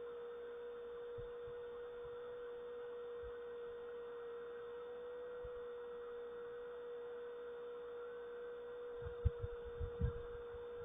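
A steady hum at one unchanging pitch over a faint hiss, with a few low thumps near the end.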